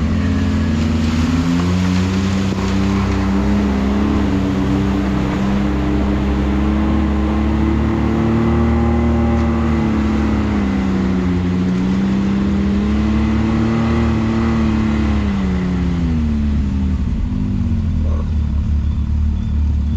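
Can-Am Maverick X3 side-by-side's turbocharged three-cylinder engine running at part throttle on a trail. Its pitch rises at the start, holds with small rises and falls, then drops away near the end as the machine slows.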